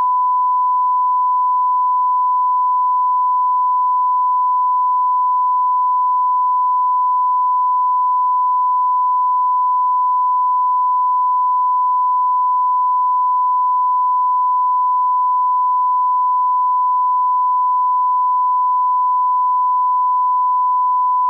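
Color-bar reference test tone: one pure, steady beep held at a constant level without a break.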